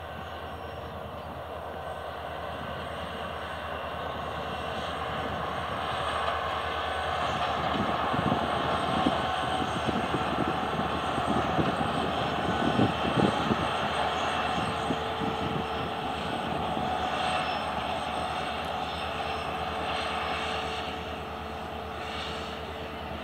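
WDP4D diesel locomotive's 16-cylinder two-stroke EMD engine running under power as it hauls a passenger train past, growing louder toward the middle and easing off near the end. Wheels knock on the rails as it goes by, loudest around the middle.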